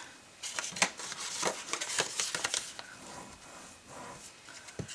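A bone folder scraping along the folded creases of kraft cardstock to burnish them: a run of short scrapes and paper rustles, quieter in the second half.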